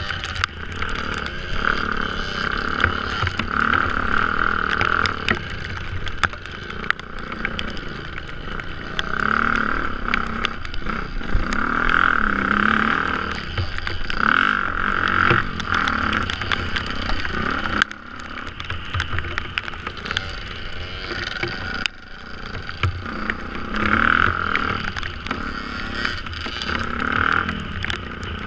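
Dirt bike engine running under load, revving up and down repeatedly, with frequent short knocks and rattles as the bike rides over rough ground.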